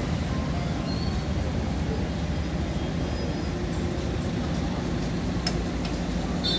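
Steady low rumbling background noise of a busy griddle stall, with a few faint light clicks of metal tongs about five and a half seconds in.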